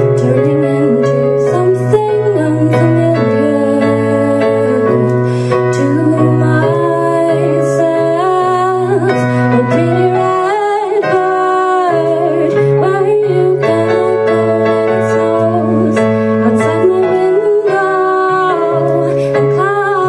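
A woman singing a slow song while accompanying herself on an electronic keyboard, playing held chords that change every couple of seconds; the low notes drop out briefly about halfway.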